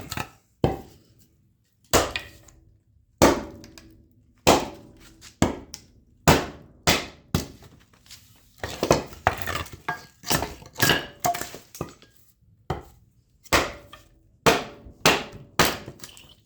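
Firewood being split into kindling: a long run of sharp chopping strikes of a blade into wood, irregularly spaced about one every half second to second and a half, some with a brief woody ring as a piece splits.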